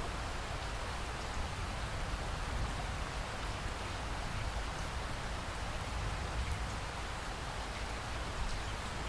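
Steady rain falling, with a low rumble underneath and small rises and falls in level but no distinct thunderclap.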